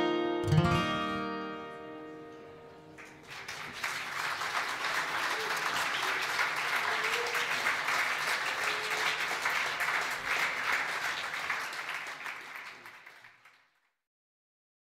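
Guitar's final chord ringing and dying away, then an audience applauding for about ten seconds until it fades out.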